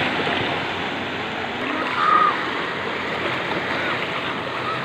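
Sea waves surging and washing in the shallows, a steady rush of surf; the waves are strong. A short high-pitched sound cuts in briefly about two seconds in.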